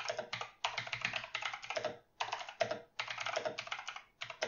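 Typing on a computer keyboard: quick runs of keystrokes with brief pauses, about two seconds in and again near the end.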